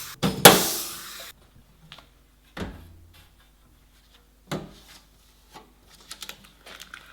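Knocks, scrapes and clatter of objects being handled. Two loud rushing scrapes come in the first second and a half, a duller thump follows about two and a half seconds in, and small clicks come near the end.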